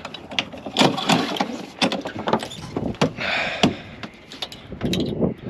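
Knocks, clicks and rustling from handling a yacht's mainsheet, rigging and loose mainsail cloth, with a short hissing rustle a little after three seconds in.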